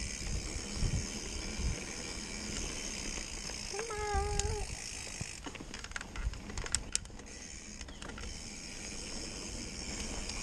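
Mountain bike rolling fast down a packed-dirt trail: low rumble of tyres and wind buffeting on the microphone, with scattered clicks and rattles from the bike over the bumps. A short pitched tone sounds for under a second about four seconds in.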